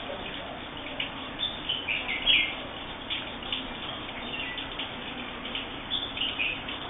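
Bulbuls chirping: a string of short, quick calls, with a louder cluster about one and a half to two and a half seconds in and another near the end, over a steady background hiss.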